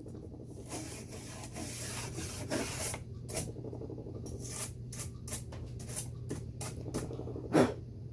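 Stiff-bristled toothbrush scrubbing dirt out of a window screen track: rapid continuous scrubbing for about three seconds, then short separate strokes, with one louder knock near the end.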